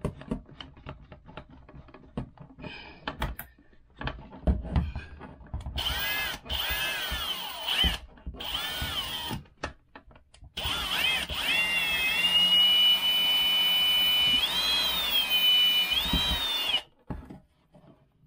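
Cordless drill with a long extension bit drilling a small pilot hole up through an RV ceiling toward the roof. It starts with a few clicks and knocks. Then come short bursts of drilling, the motor speeding up and slowing down. A longer run of about five seconds follows, rising in pitch twice, and stops suddenly.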